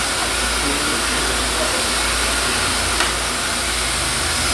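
Water purification system running with all its pumps and the sterilizer on, purified water rushing out: a steady hissing rush with a low rumble beneath.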